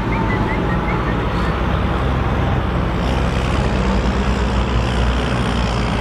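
Large farm tractor's diesel engine running steadily under load while pulling a mounted plough.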